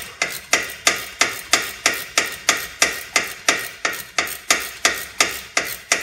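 Ratchet wrench clicking about three times a second as it runs in the hub-and-bearing mounting bolts through the steering knuckle.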